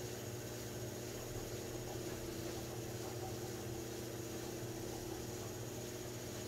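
Electric potter's wheel running under a large, wet clay bowl being opened, giving a steady hum over a soft hiss.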